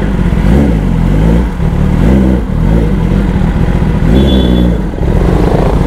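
Kawasaki ZX-10R superbike's inline-four engine running loud, its pitch rising and falling several times as the throttle is worked.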